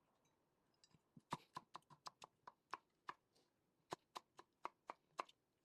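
Knife slicing watermelon into thin pieces on a cutting board: a run of sharp taps about four a second, with a short pause midway.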